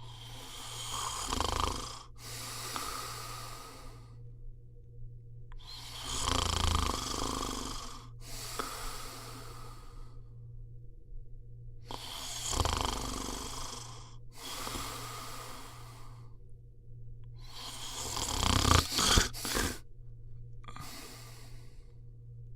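A person snoring in slow, regular breaths about every six seconds, each a rasping snore followed by a softer breath. The loudest is a ragged snore near the end.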